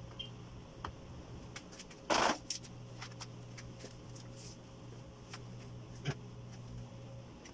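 Light handling noises: scattered small clicks and one short, louder rustle or scrape about two seconds in, over a steady low hum.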